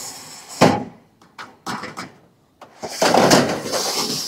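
Handling noises on a metal coop roof: a sharp knock about half a second in, a few light clicks, then a longer rushing scrape from about three seconds in.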